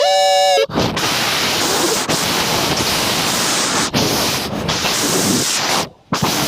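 Loud, steady rushing noise like static, opening with a short held tone and cutting out briefly near the end.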